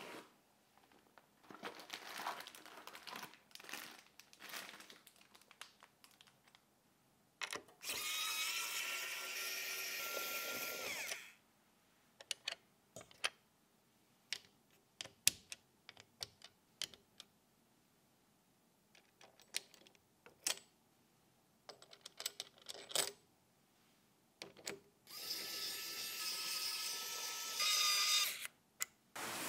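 Small electric screwdriver whirring in two spells of about three and a half seconds, driving screws into the PC build, with light clicks and knocks of parts being handled between them.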